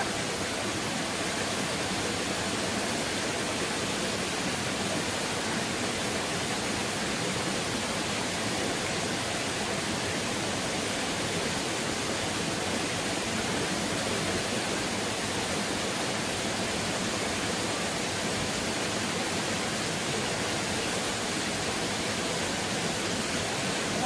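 Shallow mountain stream flowing over rocks: a steady, even rushing of water.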